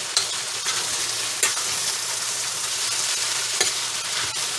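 Vegetables frying in oil in a pan, sizzling steadily, with a few clicks of a utensil against the pan as they are stirred.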